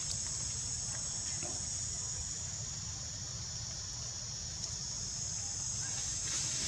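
A steady, high-pitched insect chorus, with a low rumble underneath.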